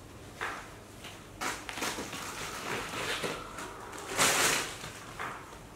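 Rustling and scuffing as a baby monkey scrambles off a lap and scampers across a foam play mat. A louder, hissing scrape comes about four seconds in.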